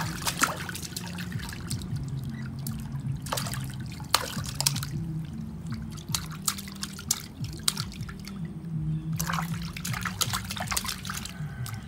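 Bathwater in a plastic basin splashing and trickling as a baby paddles and slaps it with its hands. The splashes come in short clusters: near the start, a few seconds in, and again near the end.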